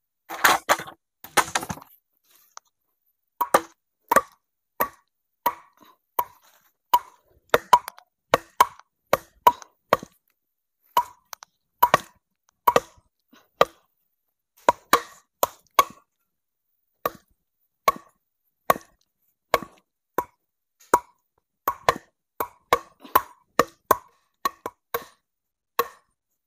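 A tool striking wood, with about one or two sharp knocks a second, preceded by a louder clatter in the first two seconds.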